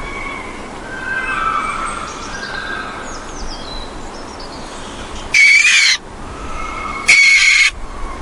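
Two loud, harsh bird screeches about a second and a half apart, over fainter wavering calls.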